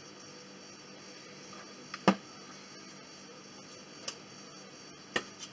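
A few sharp knocks and clinks of kitchen utensils and dishes being handled: the loudest about two seconds in, a lighter one at about four seconds and another strong one near the end, over a faint steady hum.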